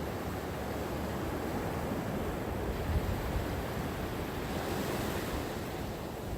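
Gentle ocean waves washing on the shore, a steady hiss that swells a little as a wave washes in about five seconds in.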